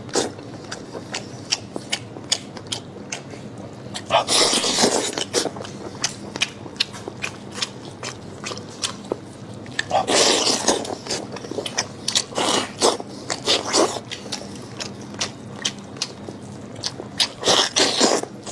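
Close-miked eating sounds of braised monkfish being sucked and bitten off the bone: wet lip smacks and chewing clicks, with three louder sucking slurps about four, ten and seventeen seconds in.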